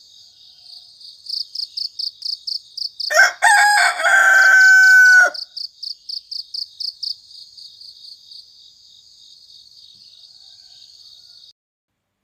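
A rooster crows once, a cock-a-doodle-doo of about two seconds, over crickets chirping in a steady pulsing rhythm. The cricket chirping grows fainter later on and cuts off abruptly near the end.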